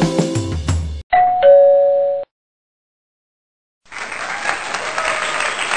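Background music stops about a second in. A two-note falling ding-dong chime like a doorbell follows, lasting about a second. After a short silence, a steady hiss starts near the end.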